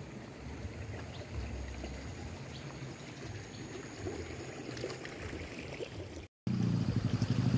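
Faint steady rush of flowing water, with a few soft low handling thumps. About six seconds in, after a brief dropout, a vehicle engine comes in, running steadily with a low hum.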